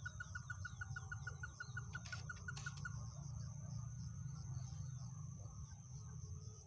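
A bird giving a rapid series of short, identical notes, about six a second, which stops about three seconds in. Beneath it run a steady high-pitched hum and a low rumble.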